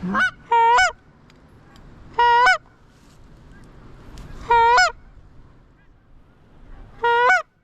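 Goose honks: five loud honks, each briefly rising and falling in pitch, a short one at the start and the others spaced about two seconds apart.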